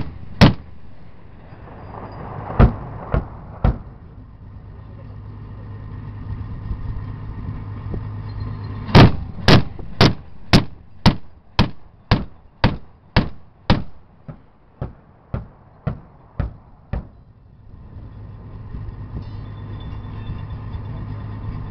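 25mm GIAT autocannon on an FNSS ACV Sharpshooter turret firing HE rounds: two shots at the start, three more a couple of seconds later, then a string of about sixteen shots at roughly two a second, the last ones quieter. A steady low engine hum runs underneath.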